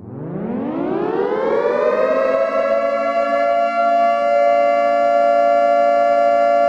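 A siren-like wail that rises in pitch over about two seconds, then holds steady.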